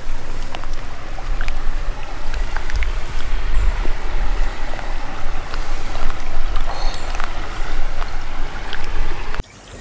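Flowing river water rushing and splashing close to the microphone, a steady loud wash with a heavy low rumble underneath; it cuts off abruptly near the end.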